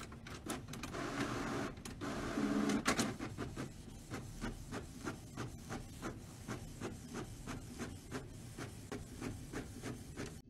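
All-in-one home printer printing a page: a whirring paper feed at first, then regular short clicks of the print mechanism stepping along, about three a second.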